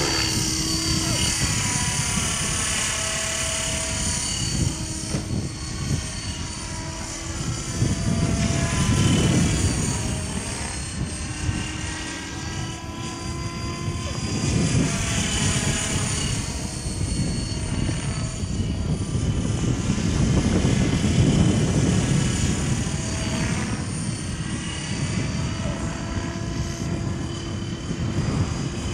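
Outrage Fusion 50 radio-controlled model helicopter in flight, its rotor and motor whine gliding up and down in pitch as it manoeuvres. It grows louder as it swings closer, a little after 8 seconds in and again around 21 seconds.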